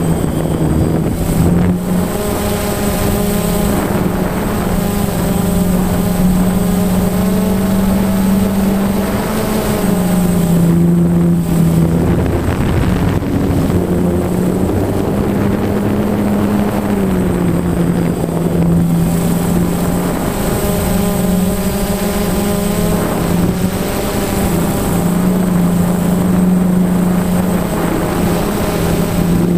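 DJI Phantom quadcopter's brushless motors and propellers buzzing in flight, heard up close from the camera mounted on the drone. The pitch shifts up and down every few seconds as the motor speeds change with the flying.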